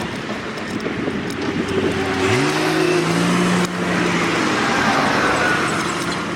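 Road traffic passing, with a vehicle engine that rises quickly in pitch about two seconds in as it accelerates, then holds steady for a couple of seconds and fades.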